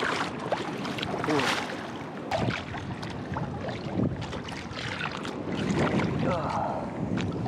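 Ocean water sloshing and lapping right at the microphone, with small splashes and some wind noise on the microphone.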